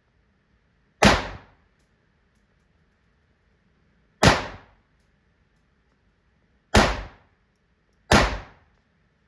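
Four single gunshots from a firearm at a shooting range, a few seconds apart, the last two closer together. Each is a sharp crack with a short fading tail.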